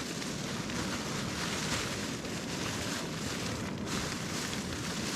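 Wind blowing over the microphone: a steady rushing noise with a fluttering low rumble.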